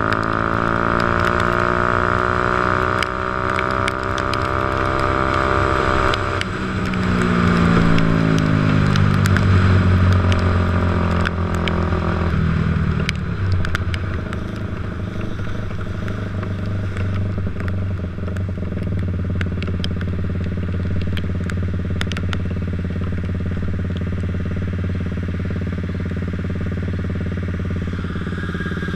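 Motorcycle engine running, its pitch falling and rising with the throttle for about twelve seconds, then dropping to a steady idle for the rest. Scattered light clicks sound over it.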